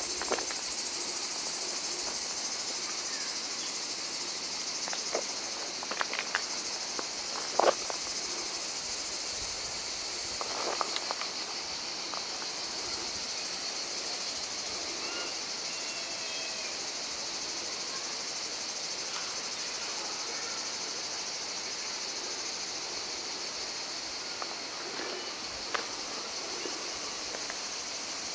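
A chorus of cicadas buzzing, a steady high-pitched drone. A few short crunches of footsteps on track ballast stones break through it, the sharpest about a third of the way in.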